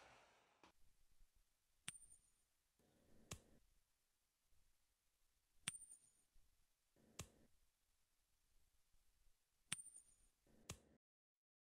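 Near silence with a small object tossed up from the hand and caught three times: each toss gives a faint sharp click with a brief high ring, and the catch about a second and a half later another click.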